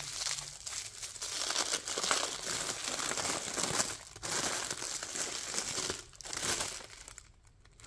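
Packaging crinkling and rustling as it is handled and unwrapped, with brief breaks about four and six seconds in and going quiet near the end.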